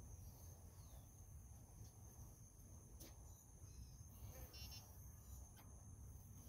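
Faint outdoor ambience: insects droning with a steady high-pitched tone over a low wind rumble on the microphone, with a brief chirp about two-thirds of the way through.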